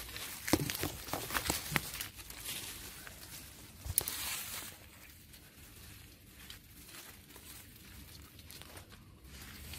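Leaves and twigs of a small tree rustling and crackling as baby monkeys climb and swing through its branches, with several sharp snaps in the first two seconds and one sharp snap about four seconds in; quieter after about five seconds.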